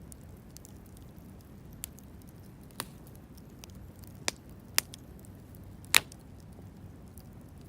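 Wood campfire burning with a steady low rumble and faint crackle, and five sharp pops from the burning wood, the loudest about six seconds in.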